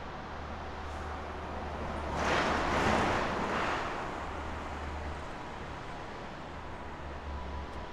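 Distant roar of a Boeing 747-8's four GEnx turbofan engines at takeoff power, mixed with low wind rumble on the microphone. The roar swells for a couple of seconds about two seconds in, then settles back to a steady rumble.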